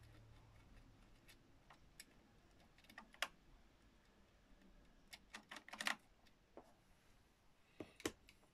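Sharp little clicks and taps from a wooden uncoupling stick working the couplings between OO gauge model wagons, scattered and irregular, with a quick run of clicks about six seconds in.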